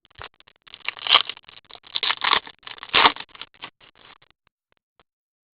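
Trading cards and pack wrappers being handled: a quick run of rustling and scraping starting just under a second in and dying away by about four and a half seconds.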